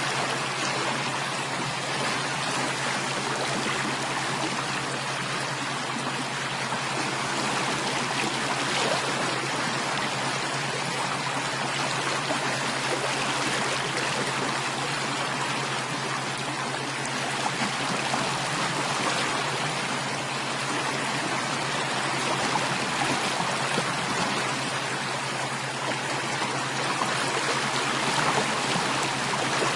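Running water, a continuous stream-like rush and trickle, steady throughout, with a faint steady low hum beneath it.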